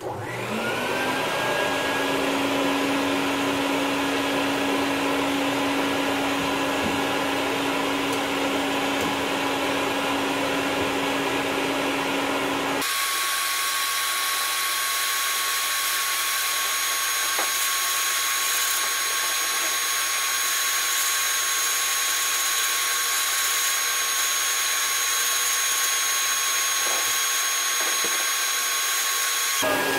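Bucket-top wet/dry vacuum powerhead starting up with a rising whine and then running steadily, drawing air through a bucket cyclone dust collector from a sandblast cabinet. About 13 seconds in the sound changes abruptly to a different steady hiss and whine with a low hum, which stops shortly before the end.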